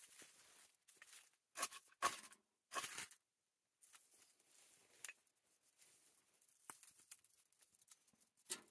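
Dry tinder and kindling being handled and scraped in a few short, sharp rustling bursts during the first three seconds, then the freshly lit tinder crackling faintly with a few small snaps as it is fed into a small wood stove.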